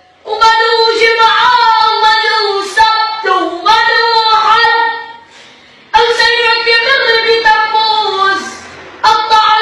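A high-pitched voice singing unaccompanied in long, wavering phrases, breaking off briefly about five seconds in and again near the end.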